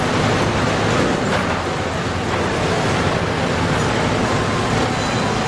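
Concrete mixer truck's diesel engine running as the truck moves slowly, heard as a steady, dense rumbling noise.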